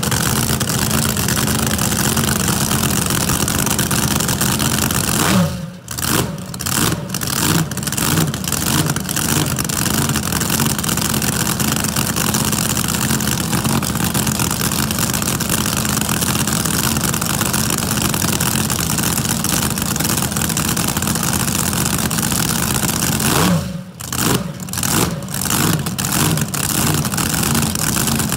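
Supercharged V8 of a flat-bottom drag boat idling with a loping, surging beat. It is blipped twice, about five seconds in and again some eighteen seconds later. Each blip rises quickly, then drops away, and the engine stumbles and surges for a few beats before settling back to idle.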